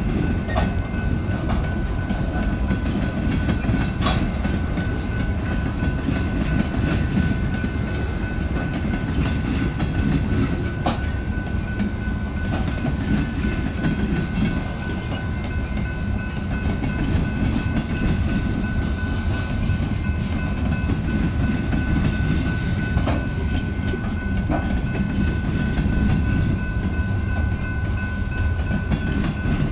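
Freight cars of a slow mixed freight train rolling past: a steady rumble of steel wheels on rail, with a few sharp clanks scattered through it and a thin steady high tone underneath.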